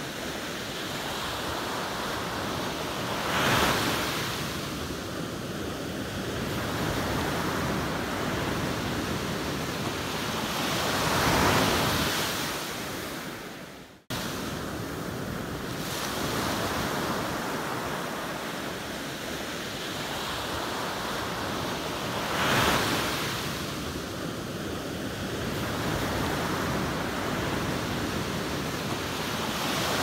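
Sea surf breaking on a sandy beach: a steady hiss of washing foam, with louder surges three times as waves break. The sound cuts out sharply for a moment about halfway through, then resumes.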